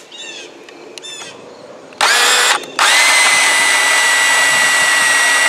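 Milwaukee cordless portable band saw starting about two seconds in, stopping for a moment, then running again as it cuts through steel rebar, with a steady high whine under the cutting noise.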